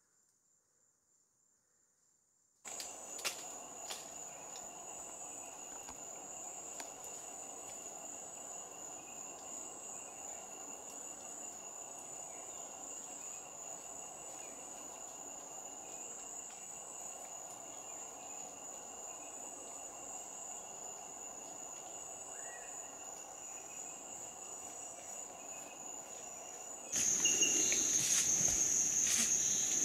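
Steady chorus of tropical forest insects: a continuous high whine with a second, lower steady tone, and a few faint clicks. It starts after a couple of seconds of near silence and gets louder near the end.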